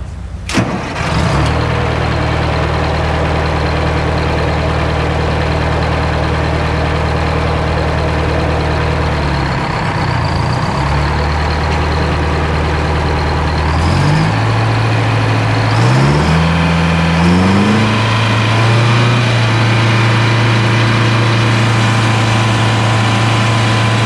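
GM 4-71 two-stroke supercharged diesel starting without glow plugs, catching within about a second of cranking, then running steadily with a high whine over the engine note. Its speed dips briefly around ten seconds, then is raised in three steps between about 14 and 18 seconds and holds at the higher speed.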